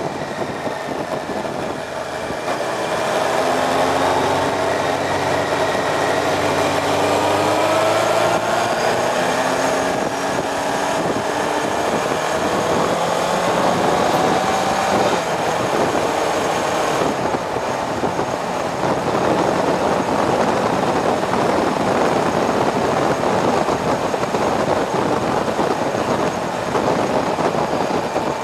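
Motorcycle engine accelerating hard, its revs climbing steadily for about fifteen seconds, under heavy rushing wind and road noise. After that the engine note fades into the steady wind rush.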